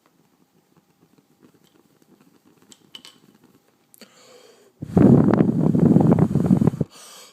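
Breath blown hard at a lit Zippo lighter's flame, rushing into the microphone. One long blow starts about five seconds in and lasts about two seconds, and a second blow begins at the very end.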